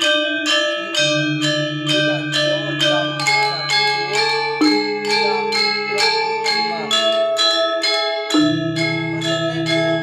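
Balinese gamelan gong ensemble playing: bronze metallophones struck in a fast, even pulse of about four to five notes a second, each note ringing on, over low sustained gong tones. The low tones drop out briefly about eight seconds in and come back.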